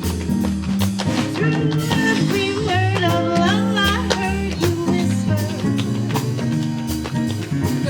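Band music with drum kit, bass and a lead melody line that slides and bends in pitch.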